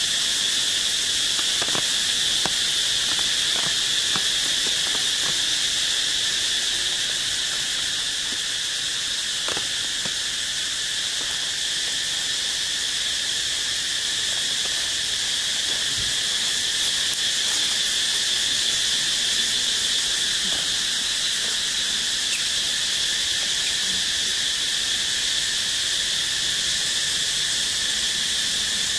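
Steady, high-pitched insect chorus droning without a break, with a few faint ticks scattered through it.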